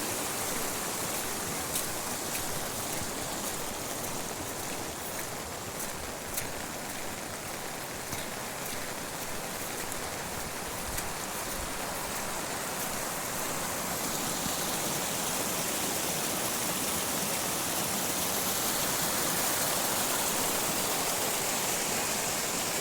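Heavy rain with running water: a steady, even rush with a few faint sharp drop-taps in the first half, growing a little louder and hissier about two thirds of the way through.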